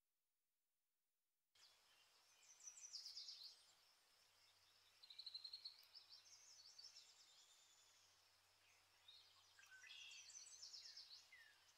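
Faint songbird song: several phrases of quick high trills and chirps, with a few falling notes near the end, over a faint low hum. It starts abruptly about a second and a half in.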